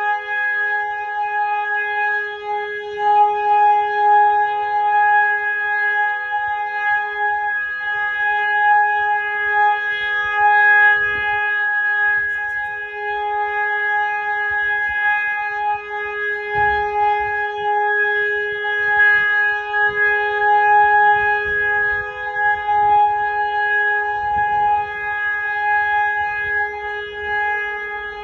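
Warning siren sounding one continuous steady tone, wavering a little in loudness: the all-clear (Entwarnung) signal of a siren test.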